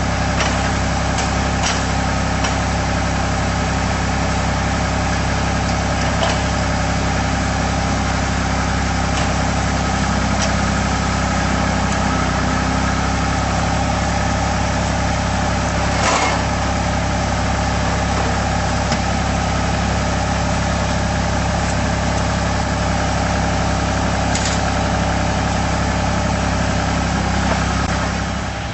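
Engine of a trailer-mounted Fence Dawg post driver running steadily at a constant speed, with a few isolated knocks, the loudest about halfway through.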